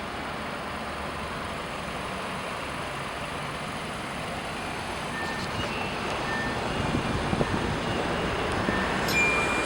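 Steady rushing vehicle noise that grows louder over the second half, with a few short high tones and a sharp click near the end.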